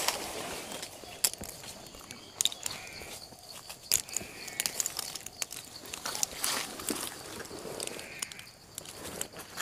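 Dry forest leaf litter and twigs crackling and rustling, with scattered sharp snaps at irregular intervals.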